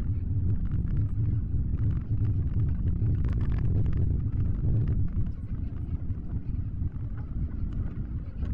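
A car driving on a wet road, heard from inside the cabin: a steady low rumble of road and engine noise.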